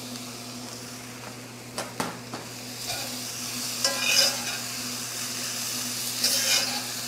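White beans tipped into a hot cast-iron pot of sizzling onions and spices, then stirred with a metal spoon against the pot. A steady sizzle runs underneath, with a few sharp knocks about two seconds in and louder bursts of stirring around four and six seconds.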